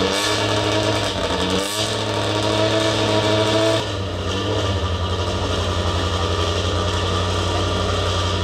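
Race car engine revving in short blips that rise and fall in pitch, then, about four seconds in, a steady, evenly pulsing idle.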